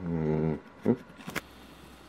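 A man's short, low voiced hum, then two small clicks.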